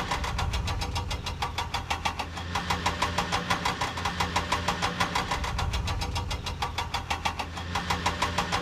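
Vehicle engine sound effect running steadily with a regular chugging pulse, about four to five beats a second.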